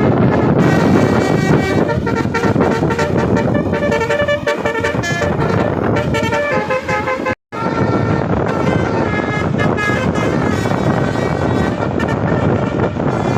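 Bus telolet horn, a modular musical air horn, playing a tune of stepping notes over engine and road noise. The sound drops out briefly about seven seconds in.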